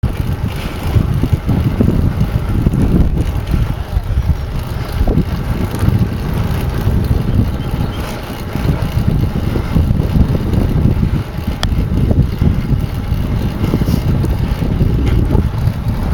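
Wind buffeting the microphone on a moving bicycle: a loud, low, gusting noise that rises and falls without a break.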